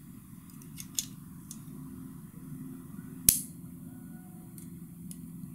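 Small steel pistol parts clicking and ticking as the frame and manual safety of a Sig Sauer P229 are handled and fitted together: a few light ticks, then one sharp metallic click about three seconds in.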